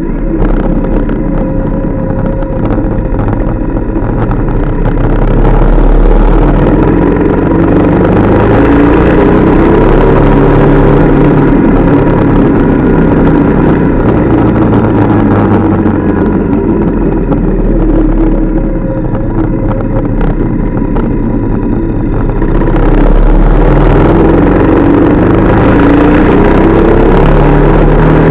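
Motorcycle engine running under way, with wind rumble on a camera mounted low by the front wheel. The engine pulls harder, its pitch rising, about six seconds in and again near the end.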